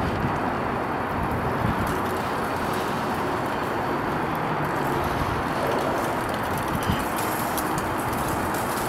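Steady city street traffic noise, an even background rumble and hiss with no single vehicle standing out.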